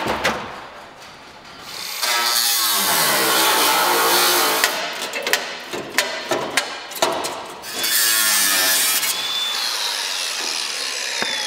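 An angle grinder works on the sheet steel of a truck cab, starting about two seconds in and running with sharp clicks from contact. Near the end it is switched off, and its whine falls steadily in pitch as the disc winds down.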